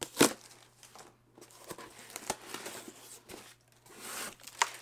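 Cardboard shipping box being torn open along its tear strip: a sharp rip right at the start, then quieter rustling and scraping of the cardboard flaps with a few light clicks.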